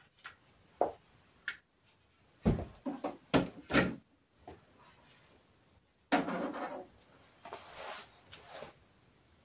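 Irregular knocks and clatters of objects being handled and set down, with a quick run of several knocks about a third of the way in, then a short scraping rustle and a few lighter shuffles.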